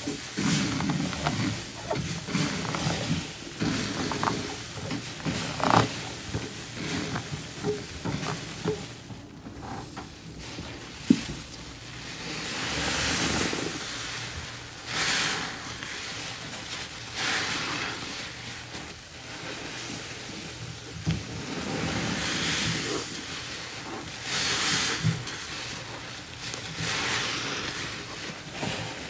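Comet cleanser powder shaken from its canister onto soaked kitchen sponges, then the sponges squeezed and kneaded by gloved hands into a foamy paste. The squelching and crackling come in repeated swells of wet hiss as the foam is pressed out, with one sharp click about eleven seconds in.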